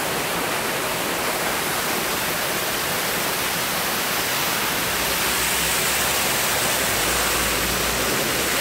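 Waterfall pouring down a rock face into a pool: a steady, loud rush of water, with a low rumble added about halfway through.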